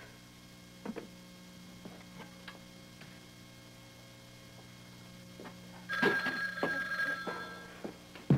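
Desk telephone's bell ringing about six seconds in, for about a second and a half. Before it there are only a few faint knocks of something being handled.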